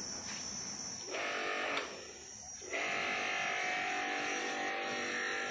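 Electric pressure washer's motor running with a steady buzz, dipping briefly about two seconds in and then running steadily again.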